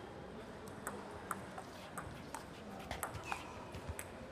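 Table tennis ball ticking off paddles and the table in a doubles rally, a sharp click about every half second.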